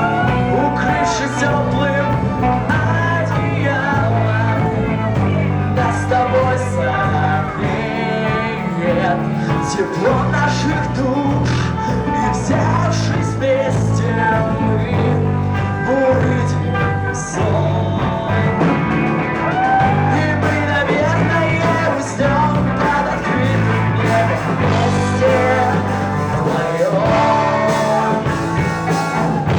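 Rock band playing live, a singer over a steady, repeating bass line.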